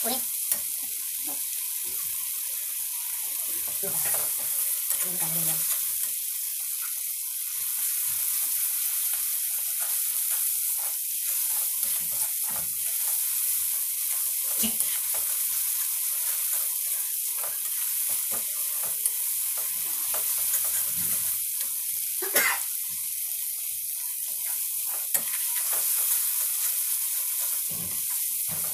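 Wet masala paste frying in oil in a metal kadhai, sizzling steadily as a slotted metal spatula stirs and scrapes through it, with a few sharp taps of the spatula against the pan, the loudest about three quarters of the way through.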